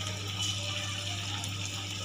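Raw-banana vadai frying in hot oil in a kadai: a steady, even sizzle.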